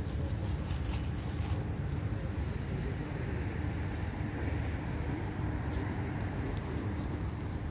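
Steady low background rumble, with light crackling and clicks from the aluminium foil tray as cats eat from it, in the first second and a half and again about six seconds in.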